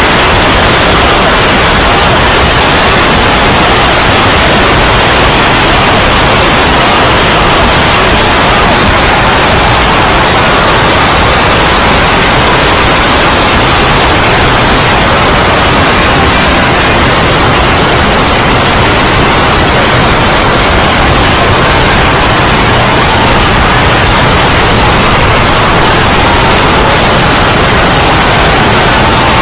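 Loud, steady wash of noise like static, dense and even, with no distinct voices or blows standing out.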